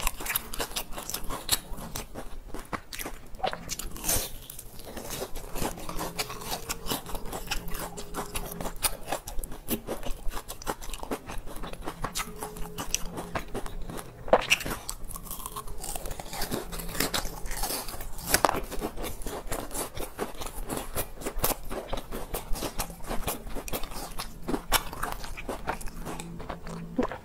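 Close-miked biting and chewing of crisp pan-fried cakes with a dark filling: dense, irregular crunching and crackling clicks.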